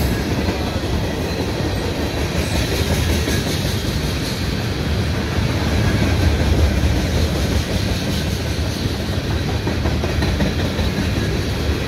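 Freight train tank cars rolling past on the track: a steady rumble of steel wheels on rail.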